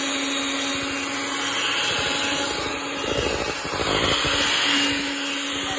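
Handheld electric mixer running steadily, its beaters whirring through eggs and oil in a stainless steel bowl. About three seconds in it grows louder and rougher for a second or so, as the beaters work against the side of the bowl.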